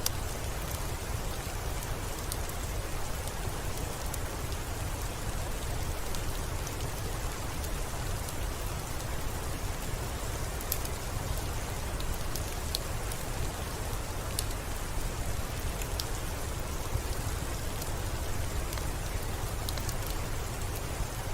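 Steady soft rain, an even hiss over a low rumble, mixed with scattered sharp crackles from a fireplace.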